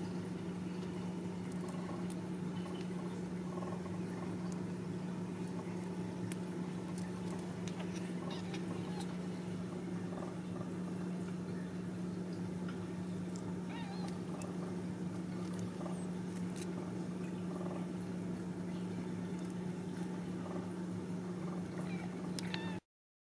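Newborn Ragdoll kittens nursing on their mother: small wet suckling clicks and a few faint high squeaks over a steady low hum. The sound cuts off abruptly near the end.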